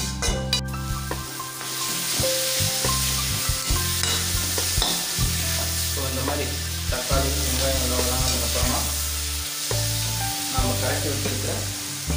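Garlic, onion and tomato sizzling in hot oil in a steel kadai while a perforated metal ladle stirs and scrapes against the pan. Background music with a steady bass line plays underneath.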